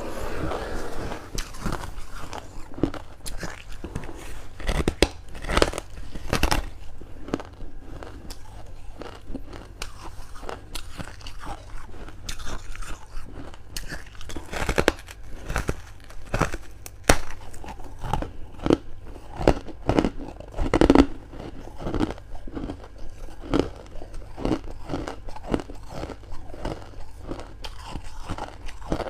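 Close-miked eating of freezer frost: repeated crunchy bites and chewing of the packed ice, in irregular crackling bursts.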